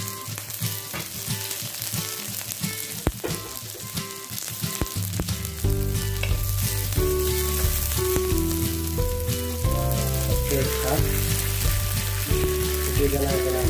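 Sliced vegetables sizzling in hot oil as they are stir-fried in an aluminium wok, a wooden spatula scraping and clicking against the pan. Background music with a bass line comes in louder about halfway through.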